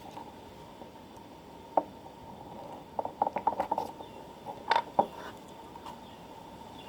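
Light clicks and taps from small objects being handled: a single click about two seconds in, a quick run of them about three seconds in, and two sharper ones near five seconds, over a faint steady hum.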